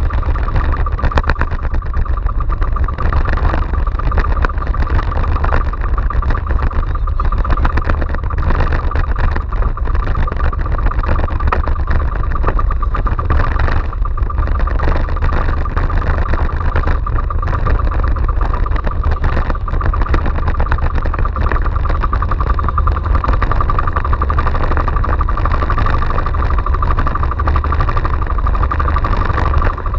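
Small outrigger fishing boat's engine running steadily under way, with wind buffeting and rough sea noise.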